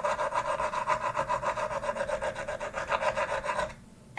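Sound effect for an animated channel logo: a rhythmic pulsing sound with a steady pitch, about eight pulses a second, that cuts off sharply about three and a half seconds in. A sharp click comes right at the end.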